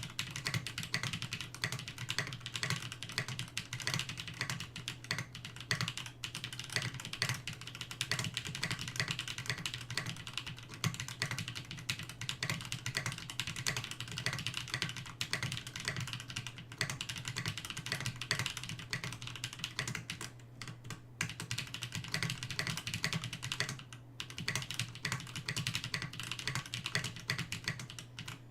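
Continuous fast typing on a Rama M65-A 65% mechanical keyboard with lubed 78g Holy Panda tactile switches and JTK doubleshot keycaps. It is a dense run of muted clacks with a couple of brief pauses, over a faint steady low hum.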